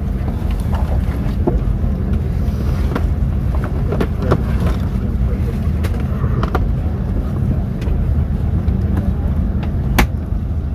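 Steady low drone of a jet airliner cabin in flight, with a few sharp clicks and knocks scattered through it.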